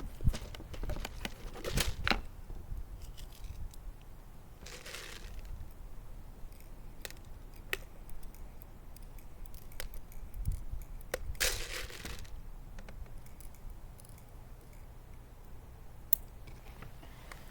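An airsoft pistol is being loaded by hand: scattered small clicks and rattles, with three short rustling bursts about 2, 5 and 11 seconds in.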